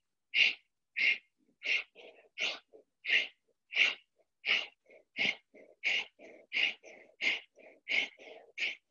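A woman's sharp, forceful exhales in a steady rhythm, about three every two seconds, with faint inhales between them: the rhythmic breathing of a yoga kriya.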